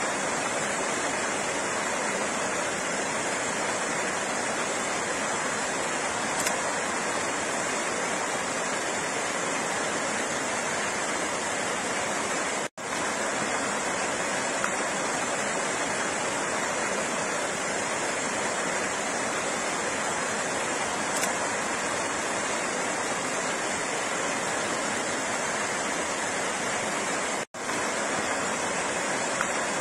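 Flowing water rushing steadily, with two momentary cuts to silence, about 13 and 27 seconds in.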